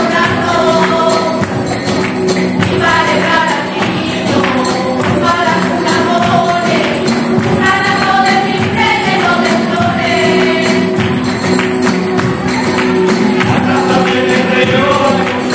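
Andalusian romero choir of mixed voices singing a villancico (Spanish Christmas carol) in unison, accompanied by strummed Spanish guitars and a tambourine keeping a steady rhythm.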